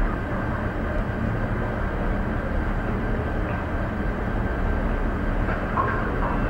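Steady low rumble and hiss of a gondola cable-car cabin riding along its haul rope, heard from inside the cabin.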